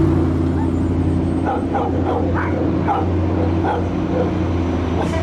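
Pierce Velocity fire engine's diesel engine running at low speed as it pulls out, a steady low drone. Over it comes a string of short, irregular high yips.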